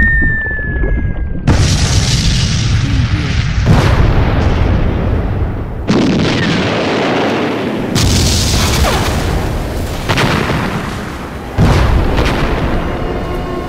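Explosions: a falling whistle ends in a loud blast about a second and a half in, and several more sudden blasts follow, with heavy rumbling between them.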